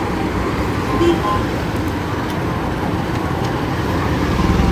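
Steady rumbling noise of road traffic and wind.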